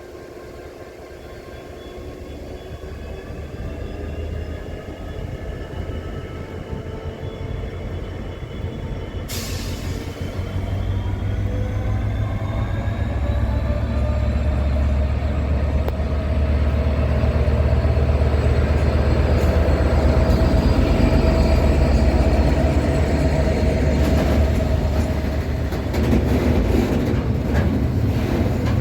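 Class 69 diesel-electric locomotive with an EMD 710 engine, powering up as it hauls the railhead treatment train away. Its deep engine note grows steadily louder and its pitch slowly rises. A hiss starts suddenly about nine seconds in, and clicks come from the wheels near the end.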